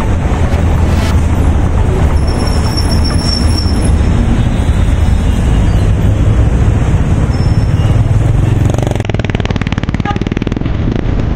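Loud, steady rumble of road traffic, its texture changing about nine seconds in.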